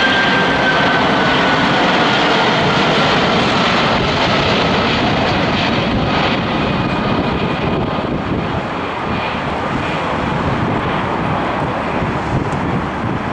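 Boeing 747-400 jet airliner on landing approach passing close by, its four turbofan engines making a loud, steady rushing noise with a high whine that falls slowly in pitch in the first few seconds. The sound fades gradually over the second half as the aircraft moves away toward the runway.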